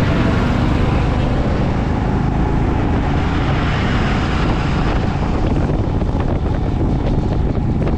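Wind rushing over the microphone, together with the engine and road noise of a motorcycle on the move.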